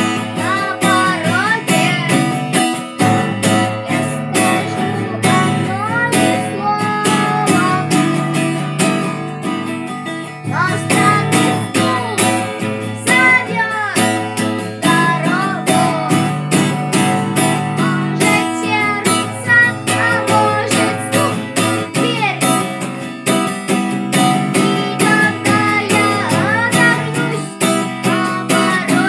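Acoustic guitar strummed in a steady rhythm, with a male voice singing over it.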